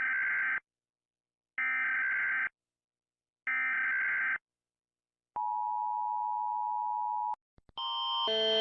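Emergency Alert System header tones: three raspy data bursts of about a second each, a second apart, then a steady two-tone attention signal for about two seconds that cuts off abruptly. Near the end a different, louder alarm starts, a pulsing chord of tones growing louder.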